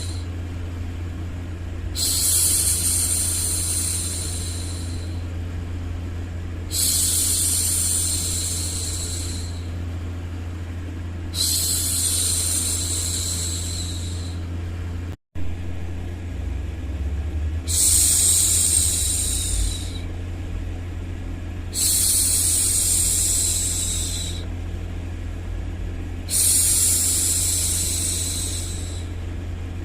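A woman's voice hushing "shhh" six times, one long fading shush about every four to five seconds, over a steady low background noise. The sound cuts out for a moment about halfway through.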